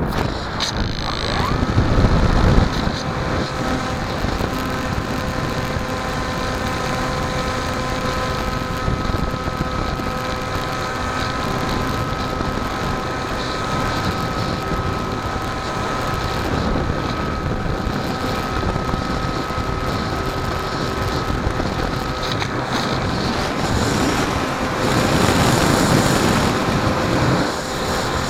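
The electric motor and propeller of a foamboard flying-wing RC plane spool up at takeoff, the whine rising in pitch within the first second. The plane then runs at steady throttle, a high whine of several tones over wind rushing across the wing-mounted camera's microphone, with stronger gusts of wind noise about two seconds in and near the end.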